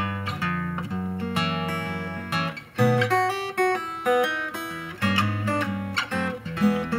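Background music on acoustic guitar, a run of plucked notes and chords.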